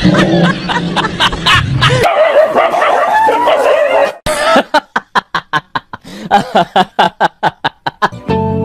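A dog barking in a fast run of short barks, about four a second, after a few seconds of chuckling laughter.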